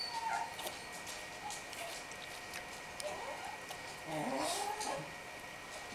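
A twelve-month-old baby making soft wordless vocal sounds: a short one at the start, another about three seconds in, and a longer one rising and falling in pitch about four seconds in.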